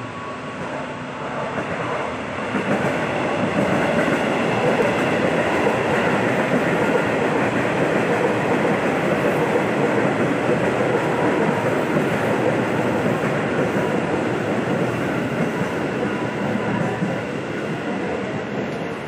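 KRL Commuter Line electric multiple unit passing along the track, its wheels running on the rails in a steady, dense rumble that grows louder over the first few seconds and dies away near the end.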